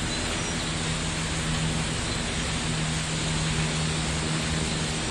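Steady rushing of a mountain river or stream in the gorge below, with a faint low hum underneath that does not change.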